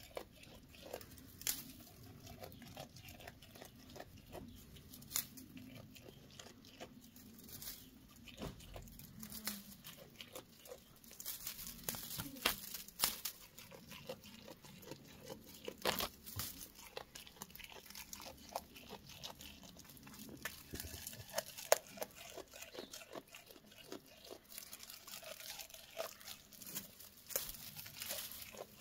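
A goat biting and tearing leaves off a leafy branch held out to it and chewing them, heard as irregular crunches and sharp snaps with rustling of the leaves.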